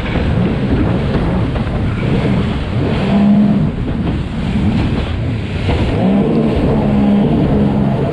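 Sea-Doo Spark personal watercraft engines running hard at racing speed, the pitch rising and falling with the throttle, over a steady rush of noise.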